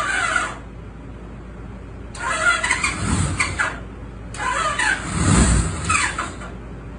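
Suzuki GS850 inline-four motorcycle engine being cranked on its electric starter in repeated bursts: one burst ending about half a second in, then two more of about one and a half and two seconds. The engine tries to fire but does not catch and run, on its first start after a rebuild.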